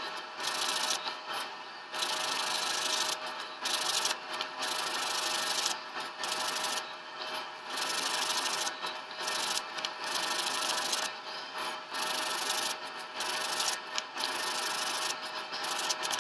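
Medium-grit (150) sandpaper on a wooden sanding block rubbed across the face of a thin wooden model-rocket fin, in a steady run of strokes about one a second with short pauses between them.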